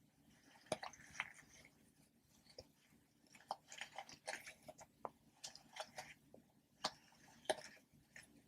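Popper toys being pressed, giving a quick irregular run of small pops and clicks, with two sharper pops, one about a second in and one near the end.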